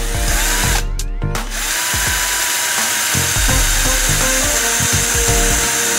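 Cordless drill running under load, boring a hole through a wooden stick. The drilling breaks off briefly about a second in, then runs on steadily.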